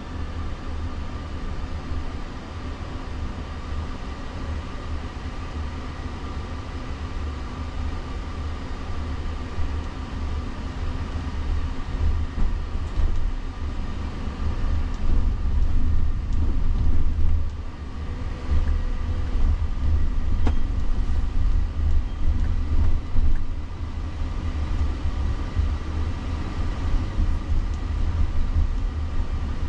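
Road and tyre rumble inside the cabin of a Jaguar I-PACE electric car driving on city streets, with faint steady high tones above it. The rumble grows louder about halfway through.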